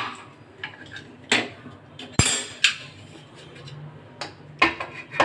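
A metal spoon clinking and scraping against a cooking pot, with several sharp knocks at irregular intervals, as green chili paste is added and stirred into the mutton.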